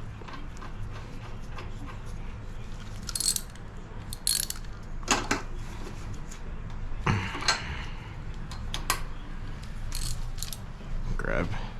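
Metal tool-on-engine work on a small garden tiller engine: scattered clicks and ratchet-like clicking with short scraping bursts, over a steady low hum.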